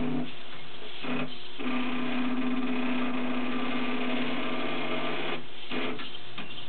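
Meccano kumihimo braiding machine running, its motors and metal gearing making a steady mechanical whir. A strong steady motor hum comes in about a second and a half in and drops out about five seconds in.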